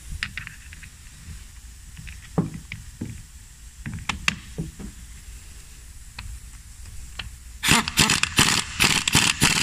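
Scattered light clicks and taps of bolts, nuts and a socket being handled. Near the end, an impact wrench hammers in a series of short bursts as it runs the nuts down to snug the lock washers.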